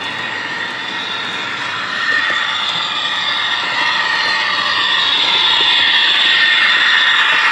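O-scale MTH DD1 electric locomotive model running past close by: a steady high whine from its motors and electric-locomotive sound system over the rumble of wheels on track. It grows louder about two seconds in and is loudest as the locomotives go by near the end.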